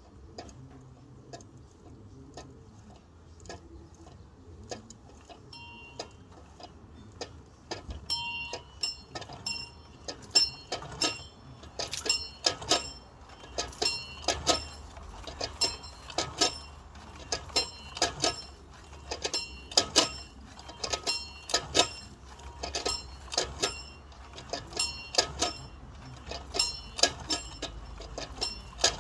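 A bell being rung, its clapper striking again and again, each stroke a sharp clink with a short high ring. The strokes are faint and sparse at first, then louder and closer together, about two a second, from about ten seconds in.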